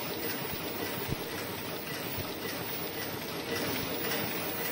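Mask earloop welding machine running: a steady mechanical hiss with a faint hum, and one short knock about a second in.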